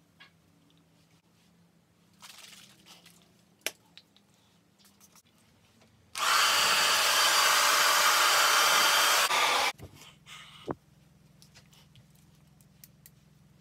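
Handheld hair dryer running steadily for about three and a half seconds, switched on and off abruptly. A few faint rustles and taps come before and after it.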